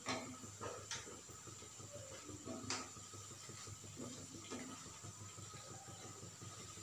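Urad dal vadas deep-frying in hot oil with a faint, steady sizzle, while a wooden spatula moves them about, knocking lightly against the pan about five times.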